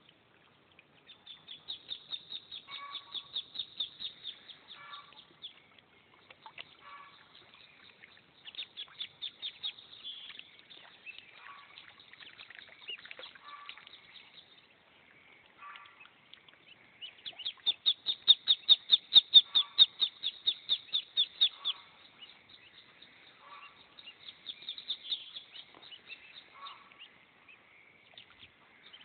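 Muscovy ducklings peeping: high, thin peeps in fast runs of a few seconds each, with short pauses between. The loudest run comes a little past the middle.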